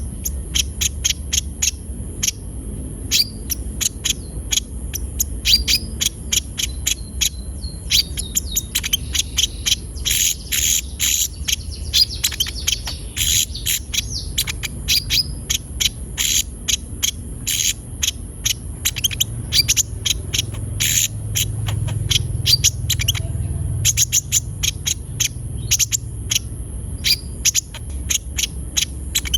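A sunbird (konin) in full song, giving a fast string of short, sharp, high chirps and twitters that come thickest in the middle. A steady high hiss runs underneath.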